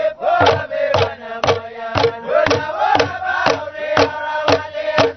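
A group of men chanting together in unison to a steady percussion beat struck about twice a second on a hand drum and bamboo.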